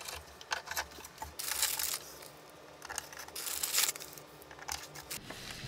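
Hand tools working on an aluminium plate: scattered light metallic clicks, with two short scraping rushes about a second and a half and three and a half seconds in.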